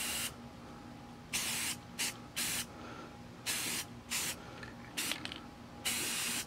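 Aerosol can of green spray paint hissing in a series of short bursts, about seven or eight, with brief pauses between them.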